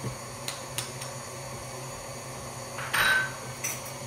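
Kitchen items being handled: a few light knocks, then a louder clatter with a brief ringing about three seconds in.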